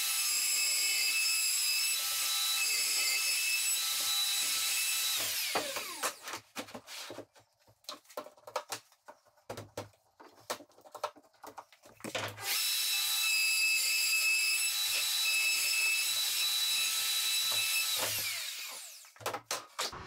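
Plunge router routing bolt recesses into a kitchen worktop through a worktop jig: it runs with a steady high whine for about five seconds and winds down, then, after a stretch of clicks and knocks as the jig's clamps are moved, runs again for about six seconds and winds down near the end.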